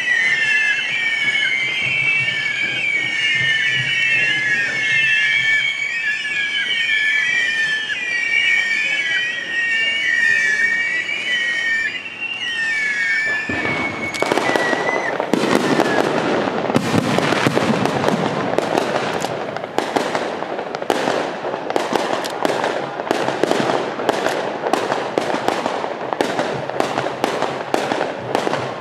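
Fireworks: many whistling rockets sound together, their pitches wavering. About halfway through they give way to dense, rapid crackling and popping of aerial bursts.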